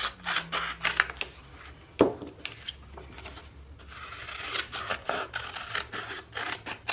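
A sticker sheet being trimmed: paper cutting and rustling, with irregular scraping and small clicks, the sharpest click about two seconds in.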